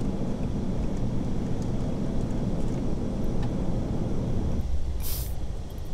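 Airbus A380 in flight heard from inside the cabin: a steady rush of airflow and engine noise that eases about four and a half seconds in, followed by a short high hiss.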